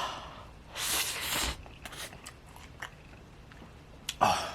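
Mouth sounds of a person eating spicy instant noodles: three noisy sucking slurps, the longest and loudest about a second in, with small chewing clicks between them.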